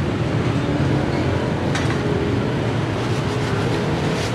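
Steady low rumble of street traffic, with a single sharp click a little under two seconds in.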